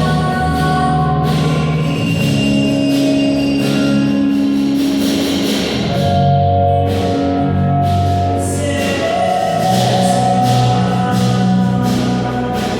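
Music: held chords over a steady bass line, with regular percussion strokes, played as a sound-check run-through.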